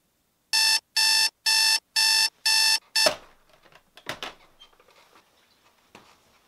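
Digital clock radio alarm beeping, about two beeps a second; the sixth beep is cut short by a thump as a hand hits the clock to silence it, with a second knock about a second later. Faint rustling follows.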